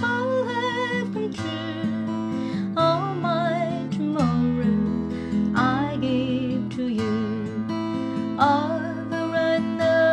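Music: an acoustic guitar strummed in a slow accompaniment, with a melody line over it that wavers strongly in pitch on each held note.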